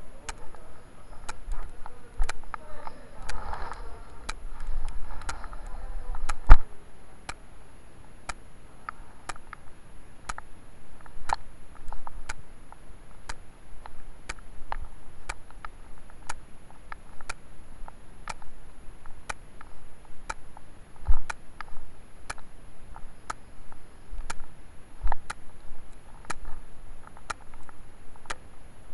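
Sharp clicks repeating about once a second, like ticking, over a faint hiss. Faint muffled voices come in a couple of seconds in, a heavy thud about six seconds in is the loudest sound, and a second, weaker thud follows about twenty seconds in.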